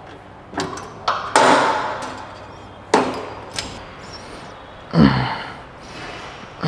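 Reps on a leg extension machine: sharp knocks from the machine and its weight stack, mixed with hard, forceful exhales as the lifter strains. A short low grunt comes about five seconds in.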